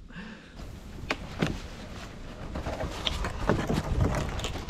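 A long snow-covered cottonwood log being dragged and shifted over frozen ground: scattered knocks and scrapes of wood over a low rumble.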